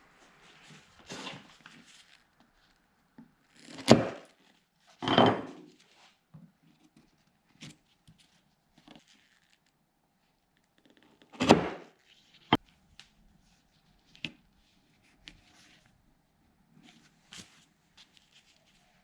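Scattered wooden knocks and clunks of timber pieces and tools being handled on a workbench, with three louder ones about four, five and eleven seconds in, a sharp click soon after the last, and lighter taps between.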